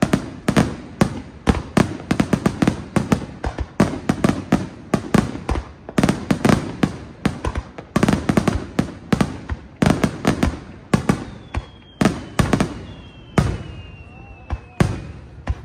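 Fireworks finale barrage: aerial shells bursting in rapid succession, several bangs a second, thinning a little in the last few seconds, with faint falling whistles near the end.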